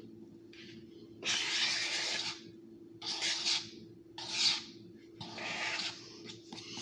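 A series of five scraping strokes, the longest and loudest about a second in and lasting about a second, over a faint steady hum.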